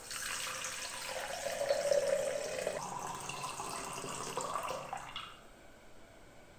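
Water running into a container for about five seconds, its pitch rising as the container fills, then stopping.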